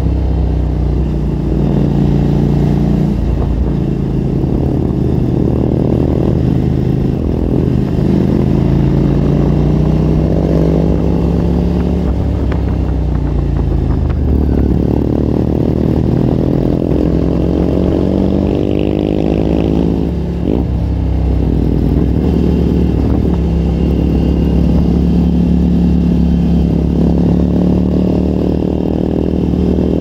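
Motorcycle engine running at road speed, its pitch climbing and falling with throttle and gear changes, with a short drop in level about twenty seconds in.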